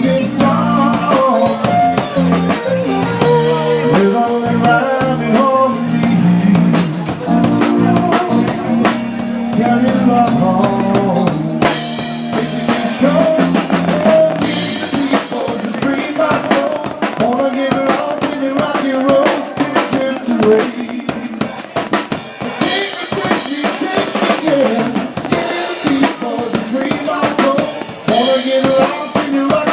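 Music with a drum kit beat, bass drum and snare over pitched instruments.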